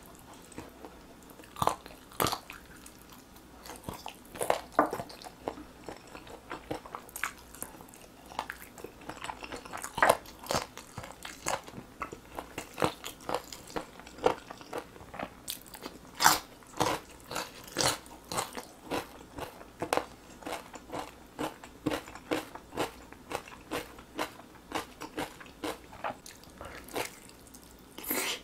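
Close-miked eating of glazed roasted chicken drumsticks: biting into the meat and chewing, heard as many short sharp clicks at an irregular pace, a few louder than the rest.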